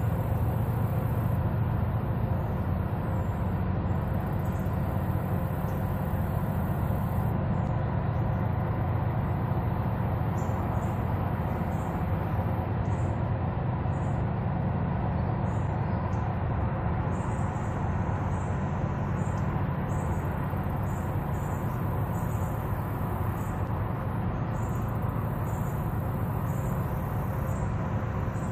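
Steady low rumble of a large river towboat's diesel engines pushing a barge tow, unchanging throughout.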